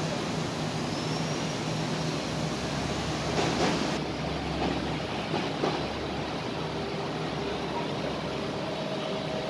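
Steady ambient hum and hiss, with a brief louder rush about three and a half seconds in.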